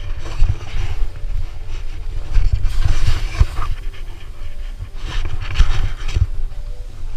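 Wind buffeting the microphone of a camera worn by a snowboarder riding down a steep snow slope, a constant low rumble. Louder rushes of noise, each about a second long, come about a second in, around three seconds in and around five and a half seconds in.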